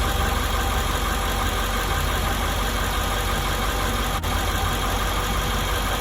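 International 7.3-litre V8 turbo-diesel idling steadily.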